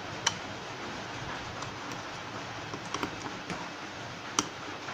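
Sharp plastic clicks as the mobile charger's plastic case is handled and pressed back together: one loud click just after the start, a few softer clicks about three seconds in, and another loud click near the end, over a steady hiss.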